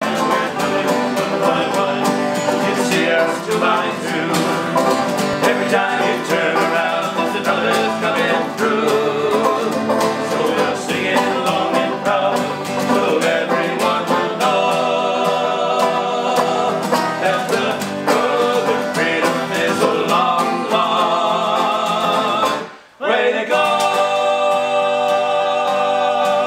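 Bluegrass music: acoustic guitars and banjo with singing. It cuts out for a moment near the end and then picks up again.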